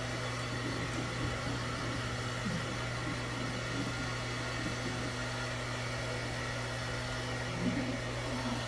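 Hand-held hair dryer running steadily: a constant low hum under an even rush of air.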